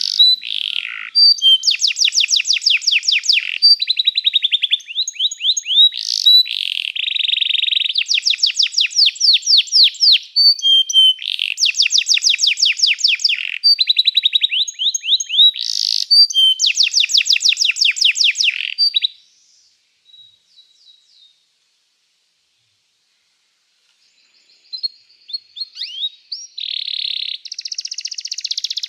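Belgian canary singing: fast trills of rapidly repeated notes, phrase after phrase. About two-thirds of the way through the song breaks off for a pause of a few seconds, then starts again.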